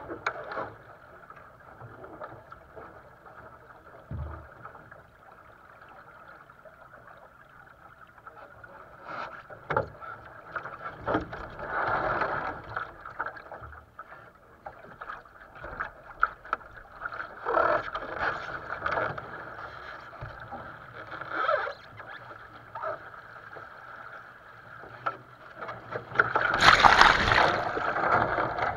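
Water rushing and splashing along the hull of a small sailing dinghy under way, with louder surges every few seconds and the loudest splash about two seconds before the end. Scattered sharp knocks from the boat's fittings.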